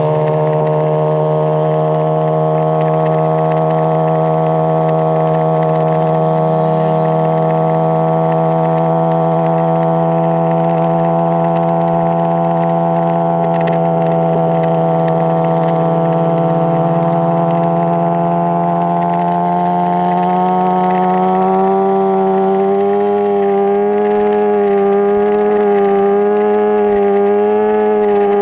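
Motorcycle engine held at high revs, its pitch creeping slowly upward, then wavering up and down about once a second near the end as the throttle is worked.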